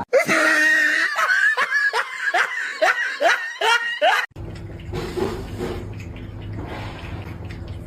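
A person laughing hard in a run of quick rhythmic bursts for about four seconds. It cuts off suddenly and gives way to a steady low hum with faint hiss.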